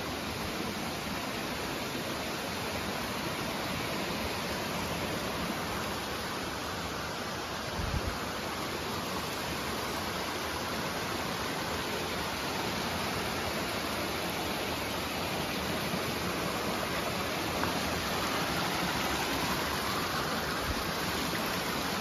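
Steady rush of water from the Chenku waterfall and its rocky stream, growing slightly louder toward the end, with one brief low thump about eight seconds in.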